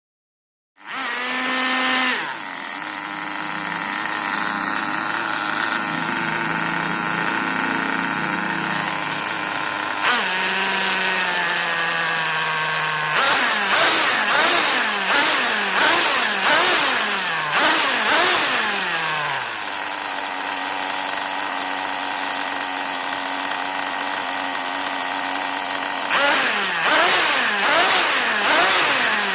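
A Tornado S30 buggy's small engine running, with a steady idle, then several quick revs that rise and fall between about 13 and 19 seconds and again near the end.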